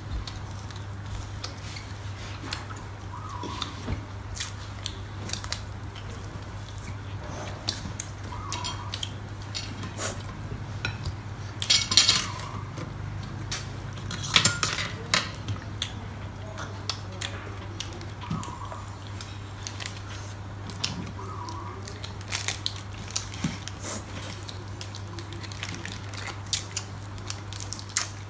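Eating sounds: forks and spoons clicking and scraping on plates and a glass bowl, with a louder clatter about twelve seconds in and again a couple of seconds later, over a steady low hum.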